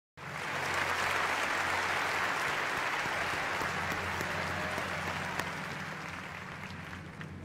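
Large audience applauding, a dense clapping that starts suddenly and gradually fades.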